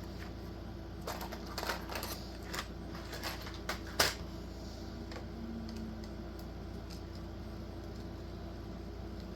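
Small clicks and taps of a screwdriver and plastic microphone parts being handled, a run of them between about one and four seconds in ending with one sharp tap, then only a steady low hum.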